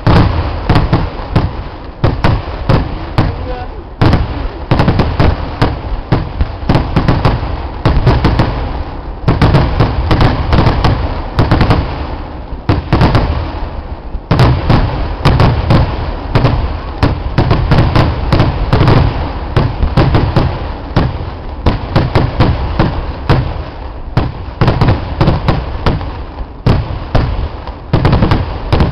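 Kerala temple-festival fireworks (vedikettu) going off in a dense, unbroken barrage: rapid loud bangs that run into one another, over deep booms.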